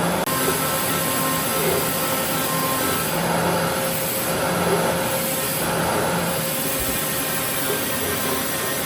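CNC router's 1.5 kW spindle running steadily with a high whine, its bit cutting wood.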